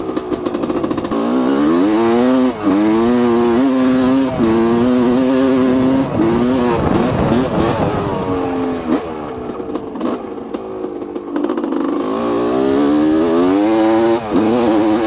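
1985 Honda CR250R's 250 cc single-cylinder two-stroke engine ridden hard, its revs climbing and dropping several times.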